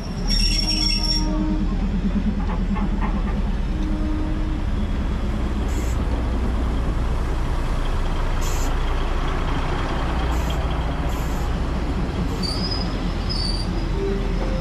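Diesel train running along the market tracks, a loud steady rumble, with a few brief high squeaks near the end.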